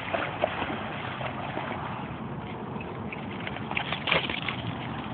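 A dog running and splashing through shallow standing water on wet grass, with scattered small splashes and a louder burst of splashing about four seconds in, over a steady background rush.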